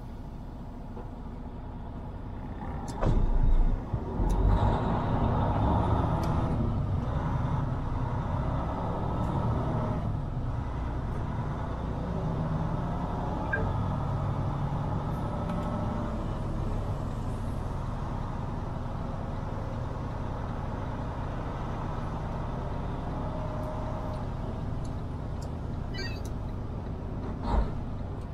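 Semi truck's diesel engine running as the rig moves slowly through a truck-stop lot. A short loud thump about three seconds in, after which the engine gets louder and stays steady, and a sharp knock near the end.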